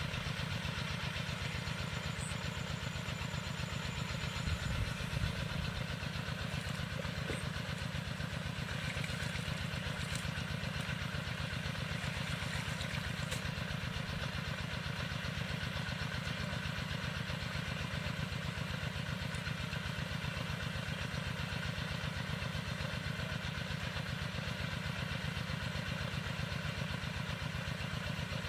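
A small engine running steadily with an even, rapid pulse.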